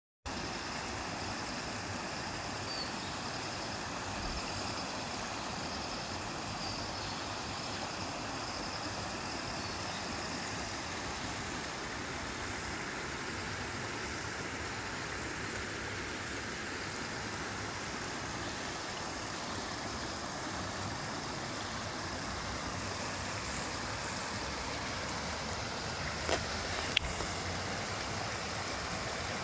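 Floodwater rushing across a road, a steady, even rushing noise, with a couple of faint knocks near the end.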